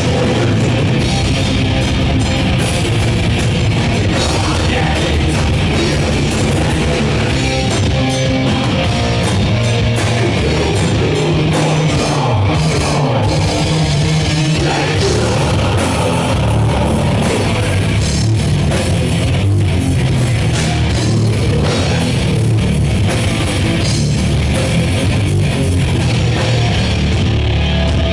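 A heavy metal band playing live at full volume: distorted electric guitars, bass and a drum kit, loud and unbroken.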